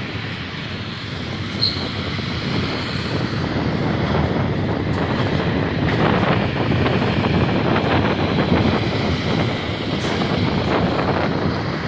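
Heavy six-wheeled military trucks towing artillery guns drive past, their diesel engines and tyres making a steady noise that grows louder about a third of the way in as a truck comes close.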